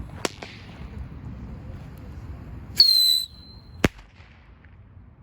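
Whistling bottle rocket launching: a shrill whistle about three seconds in, lasting about half a second and sliding slightly down in pitch, then a single sharp bang just under a second later. A sharp click comes shortly after the start.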